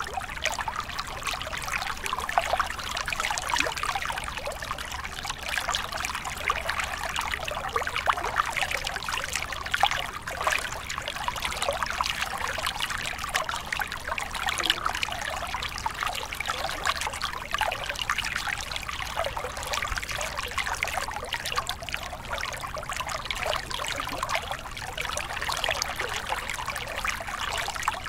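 A small mountain stream pouring over rocks into a shallow pool: steady splashing and trickling, dense with small splashes, with no pause or change.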